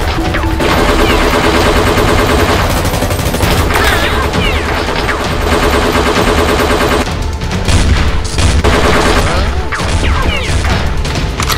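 Rapid bursts of automatic gunfire over background music.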